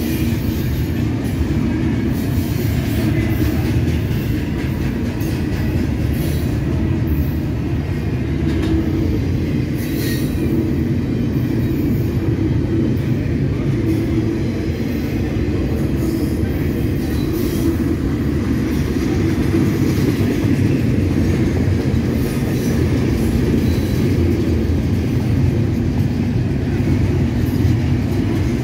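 Double-stack intermodal container cars rolling past on steel rails: a steady, continuous low rumble of wheels on track, with a few faint clicks and squeals.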